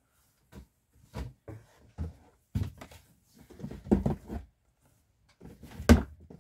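Large plastic pump bottles knocking against each other and the cardboard box as they are lifted out and gathered up: a string of irregular thumps and rustles, the loudest knock near the end.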